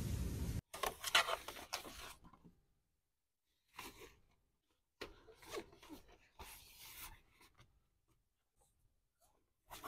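Steady wind-and-rain noise cuts off abruptly about half a second in. Then come short bursts of rustling and scraping from things being handled, with near silence between them.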